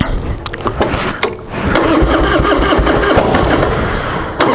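Harley-Davidson Softail's Twin Cam 88 V-twin, fitted with Feuling 525 cams, being started without the choke. It cranks, catches about a second and a half in, then runs steadily, getting suddenly louder near the end.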